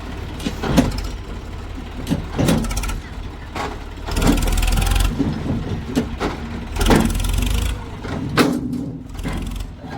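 Heavy diesel machinery engine running with scattered clanks and knocks, and two louder noisy surges of about a second each, one about four seconds in and one about seven seconds in.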